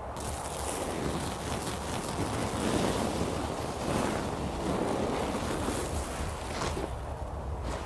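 Wind blowing across the microphone: a continuous rushing noise that swells and eases.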